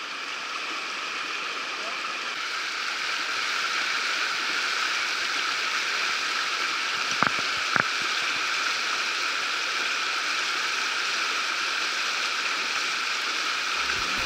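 Fast whitewater of river rapids rushing steadily, with two light clicks a little past the middle.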